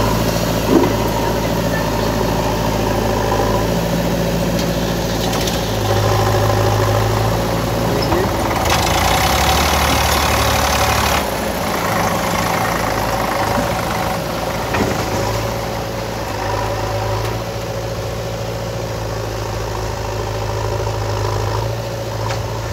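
An Eicher 485 tractor's diesel engine and a JCB backhoe loader's diesel running together as the tractor hauls away a soil-loaded trolley. A loud rushing noise comes in about nine seconds in and stops about two seconds later.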